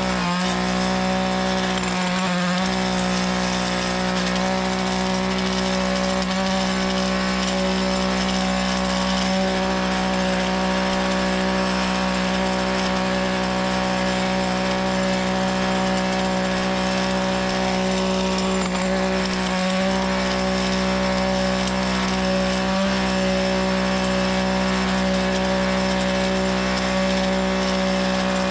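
Small gas engine of a lawn edger running steadily at high speed while edging, with a few brief dips in its note.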